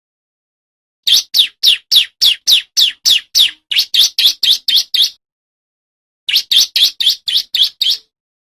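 Male bar-winged prinia (ciblek) singing in rapid-fire series of sharp, high, downward-slurred notes, about four a second. One series starts about a second in and lasts about four seconds, and a second, shorter series follows after a brief pause.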